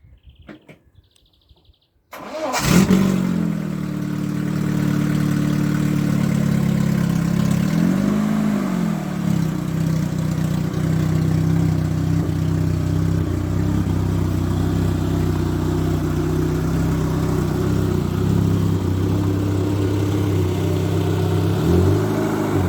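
VAZ-2106 Zhiguli engine starting about two seconds in, catching at once and settling into a steady idle, with a brief rev about eight seconds in and another near the end. The engine is freshly rebuilt with new bearings and a replacement crankshaft to cure a knock.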